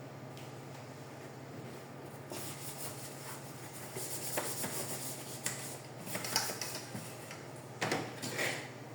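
Plastic printer housing parts being handled and fitted together: rubbing and scraping with several light clicks and knocks, over a steady low hum.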